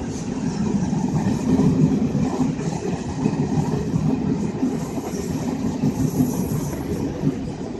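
Indian Railways passenger train coaches running past close by: a steady low rumble of wheels on rails.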